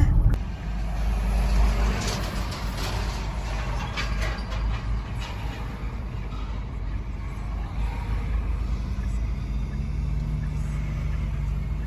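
A steady low rumble with faint scattered clicks and knocks.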